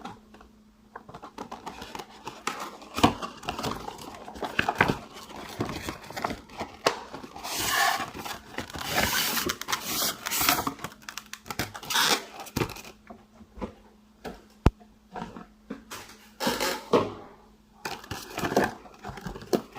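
Cardboard box of a die-cast model being opened by hand: irregular tearing, rustling and scraping of cardboard and packing, with scattered knocks and a single sharp click about fifteen seconds in.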